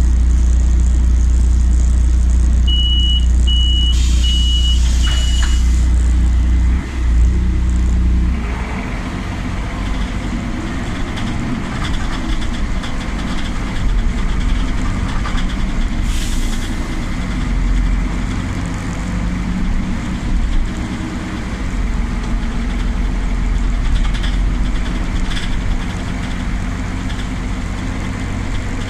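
Inside a Solaris Urbino 12 city bus: the engine idles with a steady low hum, four short door-warning beeps sound about three seconds in, and the doors close with a hiss of air. After about eight seconds the bus pulls away, and the steady hum gives way to the broader noise of driving, with another short hiss of air partway through.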